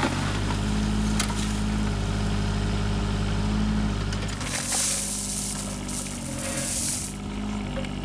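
Small digger's engine running steadily, with a rushing hiss for about two and a half seconds midway.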